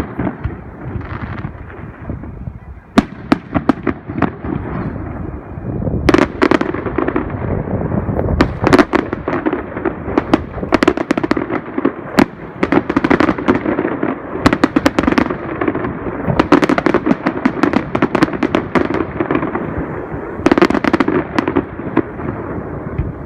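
Aerial fireworks display: a rapid string of sharp bangs and pops over a continuous rumble, growing much denser about six seconds in.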